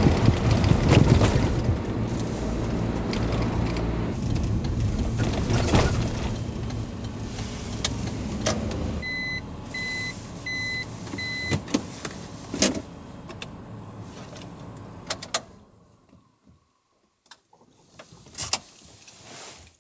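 Campervan cab while driving, with steady engine and road noise that fades as the van slows and parks. About nine seconds in comes a run of four short electronic beeps. The engine stops about sixteen seconds in, and a few clicks and knocks follow in the quiet cab.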